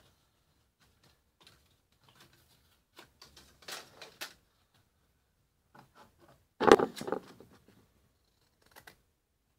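Crisp snaps and rustling of thin printed card as die-cut pieces of a card kit are pressed out of their sheet, in short bursts with the loudest about seven seconds in.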